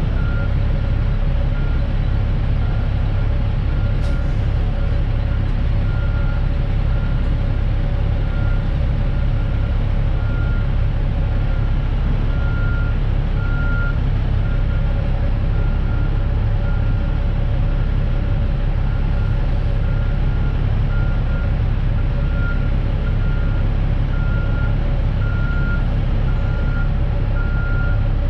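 Semi-truck backing up: its reverse alarm beeps at an even, repeating pace over the steady rumble of the diesel engine.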